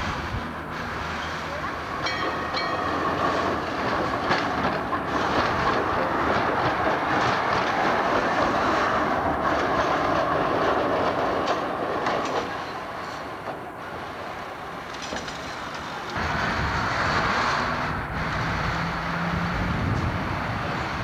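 An old Amsterdam articulated tram rolling past close by, its wheels clattering over the rail joints and points of a street junction. A deeper low rumble sets in about two-thirds of the way through.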